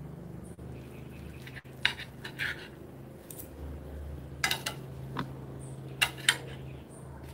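Knife and fork clinking and scraping against a plate as a rotisserie chicken is cut up, with a handful of sharp, irregular clinks. Underneath runs a steady low motor hum that stops near the end.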